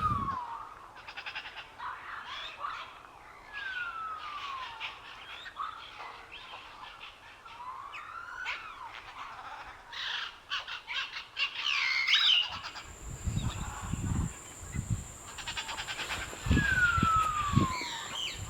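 Birds chirping and calling, with several short chirps and a clear whistle that slides down in pitch, heard three times. About two-thirds of the way through, low rumbling bumps and a faint steady high tone join in.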